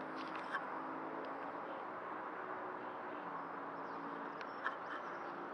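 Faint, steady outdoor background noise with a low hum, broken by two small clicks: one about half a second in and one near the end.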